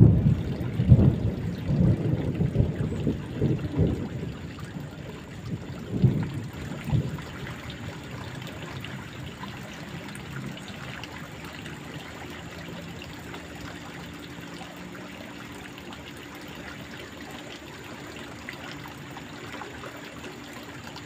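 A small, fast-flowing stream running with a steady trickling wash. In the first seven seconds or so, irregular low rumbling bumps sit loudly over it.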